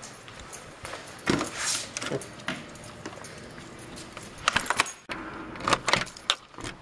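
Keys jangling on a ring, with sharp clicks and clacks as a door is opened and shut and a key is turned in a deadbolt lock; the loudest clicks come in two clusters, about four and a half seconds in and near the end.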